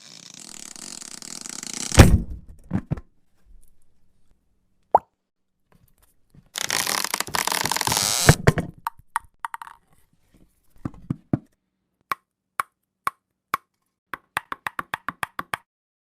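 A string of cartoon-style sound effects: a rising whoosh that ends in a heavy hit about two seconds in, a few knocks, then a two-second burst of hiss. After that comes a run of short pops that come faster near the end.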